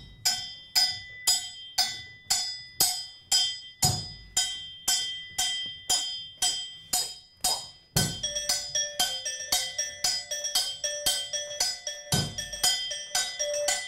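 Cowbell played in a steady rhythm, about two strikes a second, with a low drum hit about every four seconds. About eight seconds in, a pitched percussion instrument joins, repeating a riff on the single note D.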